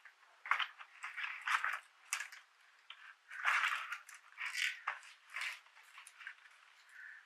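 Foil and paper bouquet wrapping crinkling and rustling as it is unfolded by hand, in a run of irregular bursts.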